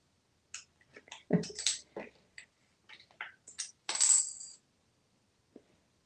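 Coins clicking and clinking on a hard vanity countertop as a parrot picks at them: scattered light clicks, a louder cluster about a second and a half in, and one coin ringing briefly about four seconds in.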